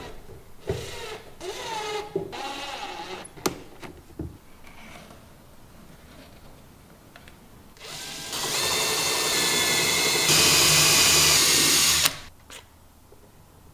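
Cordless drill drilling into wood: a few short trigger bursts that rise in pitch as the motor speeds up. Then, after a pause, one long run of about four seconds that gets louder partway through and stops suddenly.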